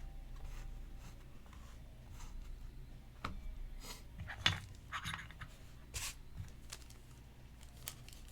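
Trading cards and their packaging being handled by hand: light rustling and scraping with scattered taps, a few sharper clicks in the middle.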